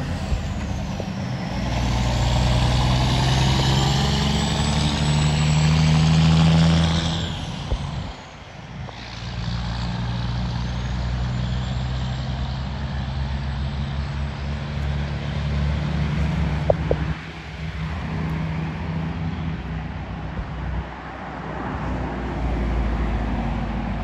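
Caterpillar 6NZ inline-six diesel of a Kenworth W900L semi truck pulling hard as it passes and accelerates away, the engine note building and then dropping out briefly three times as it shifts gears.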